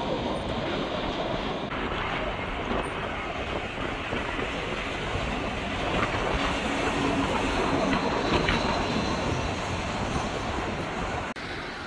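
Jet engine noise from airliners on landing approach, a Boeing 787 and then an Airbus A320: a steady rushing noise that dips briefly near the end.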